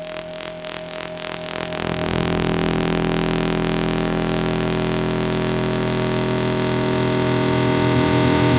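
Synth sequence played through a Bubblesound DiOD diode filter (a Steiner-Parker recreation) in high-pass mode while its knobs are turned by hand. At first thin notes pulse about four times a second; about two seconds in, low end comes through and the sound grows louder and denser, holding as a thick steady wash of many tones.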